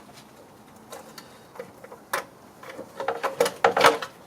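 Scattered clicks and knocks of parts and tools being handled in an engine bay, a few spread out and then a denser, louder run of them near the end.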